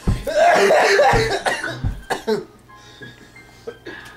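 A person's loud voice for about two seconds, with a few low thumps, then it drops away to quieter background sound.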